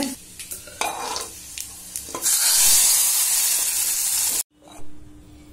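Hot oil tempering of mustard seeds, onion, garlic and curry leaves hitting cooked dal, hissing loudly for about two seconds before cutting off suddenly. Before that there is lighter sizzling with a few clicks.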